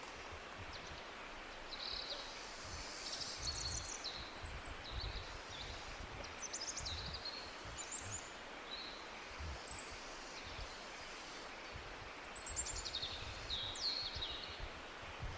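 Several tropical birds calling: short high chirps, quick trills and falling whistles come in scattered bursts, busiest a few seconds in and again near the end. Under them runs a steady rush of a jungle waterfall with a low, uneven rumble.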